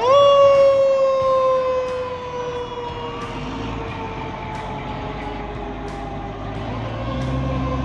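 The pumper's Federal Q mechanical siren sounds briefly and then winds down, its wail falling slowly and evenly in pitch as the rotor coasts. A low engine rumble grows louder near the end.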